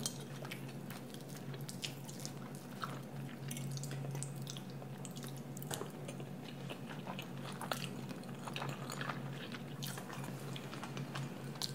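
Metal forks and spoons clicking and scraping on ceramic plates, with soft chewing, over a steady low hum.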